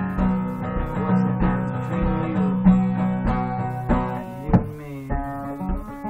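Steel-string acoustic guitar playing solo, with melody notes over a steady bass beat about twice a second. One sharp, accented note comes about three-quarters of the way through.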